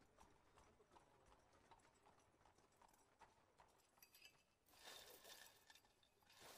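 Near silence: faint room tone with scattered soft clicks, and a slightly louder brief rustle starting about five seconds in.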